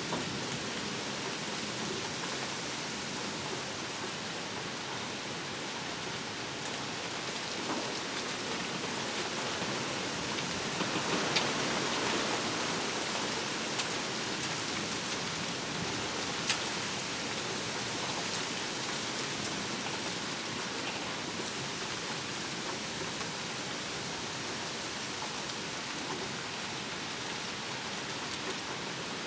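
Steady rain falling, an even hiss that swells a little about eleven seconds in. A few sharp drip ticks stand out, the loudest about sixteen seconds in.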